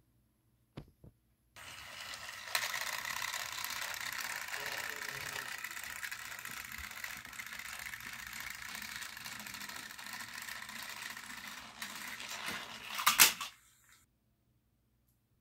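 Battery-powered toy train engines whirring steadily as they run along plastic track, with gear-and-wheel clatter. Near the end there is a brief louder clatter, and then the sound cuts off suddenly.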